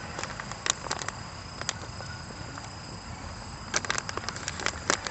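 Campfire crackling: irregular sharp snaps and pops from burning wood, coming thick and fast about four seconds in, over a low steady rumble and a thin, steady high tone.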